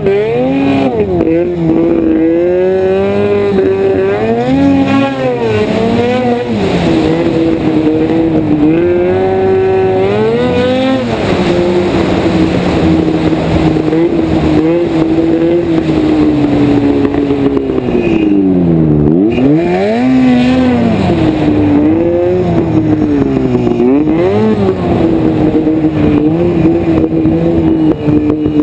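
Snowmobile engine running hard under throttle, its pitch rising and falling as the throttle is worked. About two-thirds of the way through the engine drops steeply in pitch and climbs straight back up.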